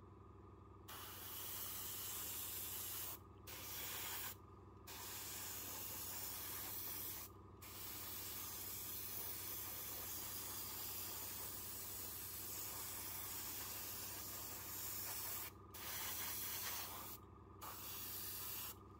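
Fengda starter airbrush spraying paint in bursts: a hiss of air that starts about a second in, stops and restarts five times in short breaks as the trigger is released, and cuts off near the end.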